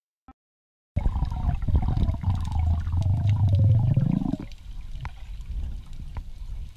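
Underwater recording of a spearfisher swimming: a loud low rumble of water moving around the camera, with a run of falling whistle-like tones for a few seconds. After that it drops to a quieter water hiss with scattered clicks.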